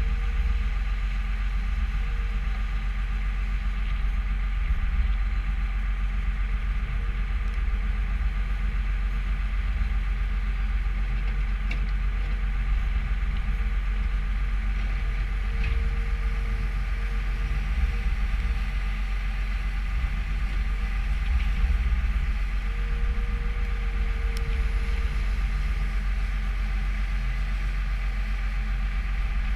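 New Holland skid steer's diesel engine running steadily, with short higher whines rising above it now and then.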